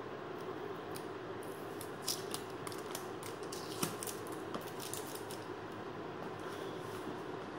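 A cardboard smartphone box being opened by hand: a run of small paper crackles and clicks from about a second and a half in to about five and a half seconds, as the seal sticker is picked off and the cardboard sleeve is slid off the inner box, over steady low room noise.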